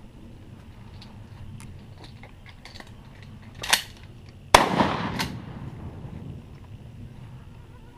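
A shotgun fires once about four and a half seconds in: a sharp blast whose echo dies away over about a second and a half. A shorter, quieter crack comes just under a second before it.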